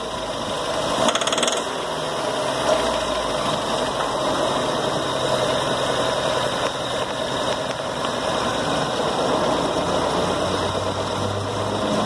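Volkswagen Gol's four-cylinder engine running rough with a metallic pinging rattle, heard steadily. The rattle is spark knock: the timing belt has jumped a tooth or two, so the engine is out of timing, a fault that another shop had taken for a rod knock.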